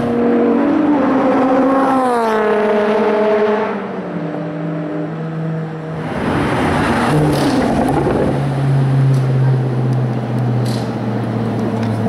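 Sports car engines moving slowly through a pit lane. One engine's note falls steadily in pitch a couple of seconds in, a louder, rougher pass comes about six seconds in, and then a steady low engine note holds to the end.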